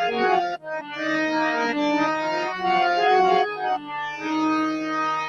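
Harmonium playing a melodic interlude between sung lines: sustained reedy notes moving from pitch to pitch, with a brief dip about half a second in.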